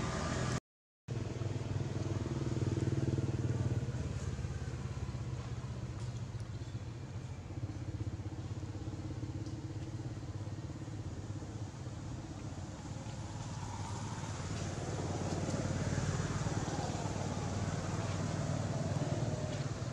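A motor engine running steadily with a low hum, swelling a little louder in the second half, with a brief dropout about a second in.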